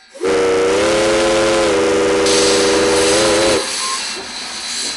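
Steam locomotive No. 17's whistle blowing one long blast of about three and a half seconds, several notes sounding together over the hiss of steam. The whistle cuts off and steam keeps hissing.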